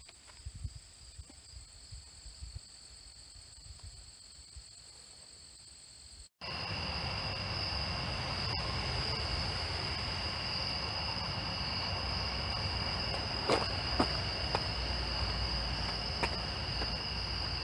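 Insects trilling in a steady, unbroken high drone, faint at first. After a cut about six seconds in the drone is louder, with a low rumble beneath it and a couple of light knocks.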